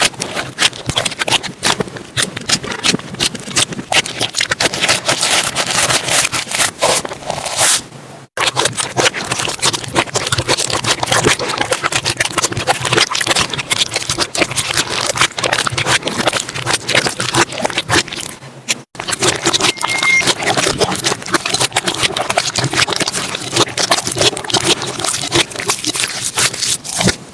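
Slime being squeezed and poked by hand, giving a dense run of small clicks and crackles. It breaks off briefly twice, about a third and two thirds of the way through.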